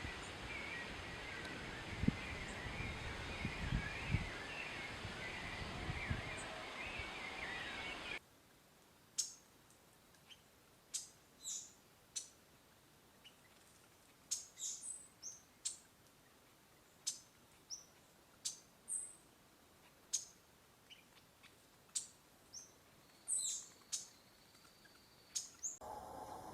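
Small songbirds calling. For the first eight seconds a busy, chattering call sits over a noisy background with a few low thumps; then, after an abrupt cut, single short, high chirps come every second or so against a quiet background.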